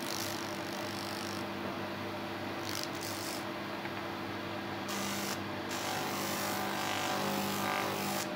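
Homemade plywood spindle sander running with a steady hum. A small piece of wood is pressed against the spinning sandpaper drum in a few short passes, each a brief hiss of abrasive on wood, followed by a longer pass in the last few seconds.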